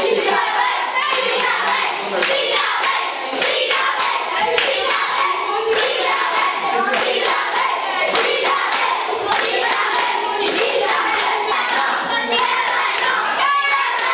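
A group of children singing together while clapping their hands.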